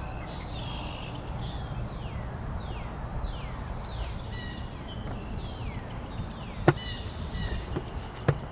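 Songbirds singing throughout, with repeated down-slurred whistled notes and a few quick high trills, over a steady low rumble of outdoor noise. A sharp click sounds about two-thirds of the way through and another near the end.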